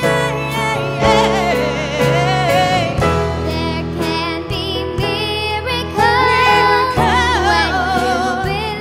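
Live band playing a song: a woman and a girl singing a melody over electric guitar, bass, keyboard and drums, with a steady beat.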